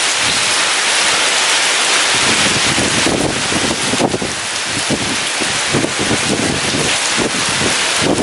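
Heavy rain pouring steadily, with gusting wind surging underneath.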